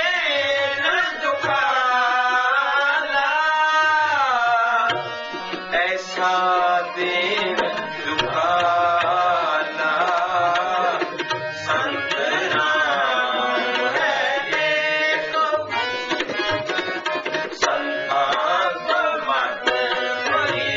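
Sikh shabad kirtan: a male voice singing Gurbani in long gliding phrases over the held notes of harmoniums, with tabla keeping the rhythm throughout.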